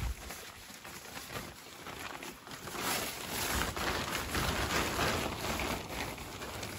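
Tyvek bivy-bag liner being opened and handled, its stiff, papery fabric crinkling and rustling, louder in the second half. A low thump at the very start.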